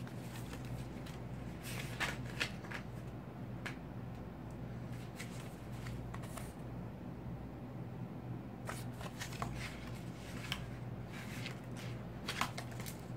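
Paper pages of a book being turned and handled by hand: scattered short rustles and flicks, some in quick clusters, over a low steady hum.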